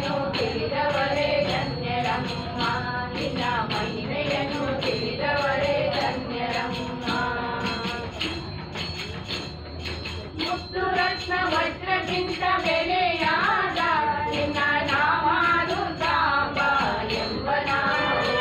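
Group of women singing a Kannada devotional song (devaranama) in unison, with a steady jingling beat from hand-held percussion. The singing thins out briefly just before the middle, then comes back in full.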